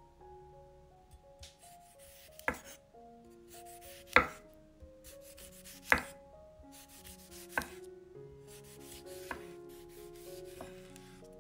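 Chef's knife slicing a tomato into rounds on a wooden cutting board: each slice is a short cutting rasp ending in a sharp knock of the blade on the board, six slices about every second and a half, the middle two knocks the loudest. Soft background music plays underneath.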